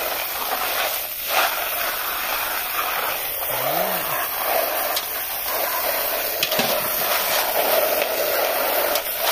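A stream of water from a hose splashing steadily onto a plastic colander of freshwater pond snails, while a hand rubs and stirs the shells through the water to wash them.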